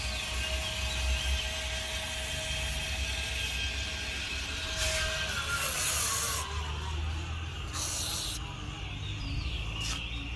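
Old electric autogate running, with a low motor hum and a steady whine whose pitch slides down about halfway through. Two short hissing bursts come partway through.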